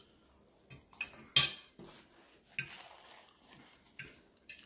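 A metal fork clinking against a dish, about six short sharp clicks while someone eats, the loudest about a second and a half in.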